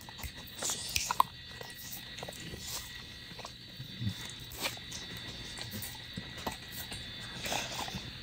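Pit bull licking its lips and smacking its mouth: a scatter of short, wet clicks and smacks, bunched about a second in and again near the end.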